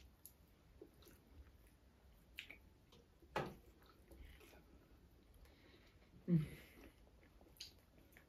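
Faint chewing and biting of people eating soft, sauce-soaked Turkish wet hamburgers by hand: scattered short wet smacks, the loudest about three and a half and six seconds in.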